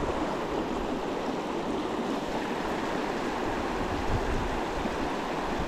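Shallow mountain creek running over a rocky riffle close by: a steady rush of flowing water.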